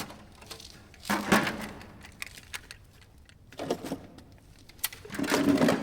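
Tools and parts being handled, with three short bursts of rattling and clattering: about a second in, a little after the middle, and near the end.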